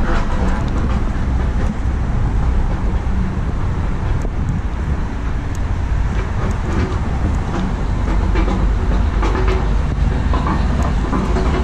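Wind buffeting the microphone: a steady, loud low rumble with scattered light clicks over it.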